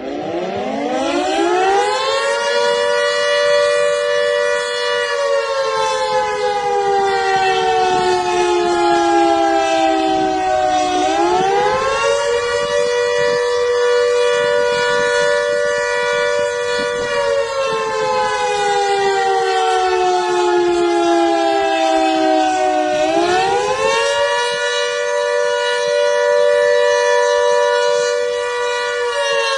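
Fire siren sounding a test. It winds up in pitch over about two seconds into a steady wail of two close pitches. It holds for a few seconds, sags slowly lower, then winds back up, going through three rise-and-fall cycles about twelve seconds apart.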